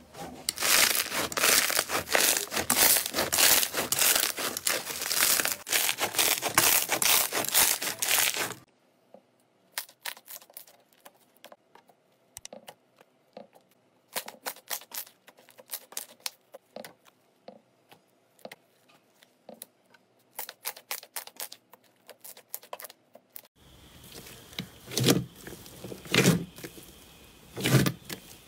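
Hands kneading and pressing slime. For the first eight seconds or so, dense crackling from a slime packed with small foam beads; then sparse sticky clicks and pops as a clear glossy slime is squeezed; near the end, three deeper squelches as a large slab of slime is pushed down.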